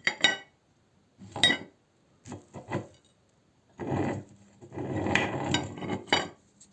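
Meat grinder at work: irregular rasping, crunching scrapes broken by sharp ringing clinks of metal or glass, with the longest scraping stretch near the end.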